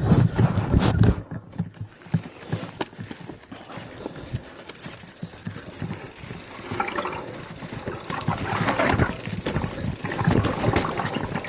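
Mountain bike riding down a rocky trail, with irregular knocking and clattering of the tyres and bike over rocks. The clatter is loudest in the first second.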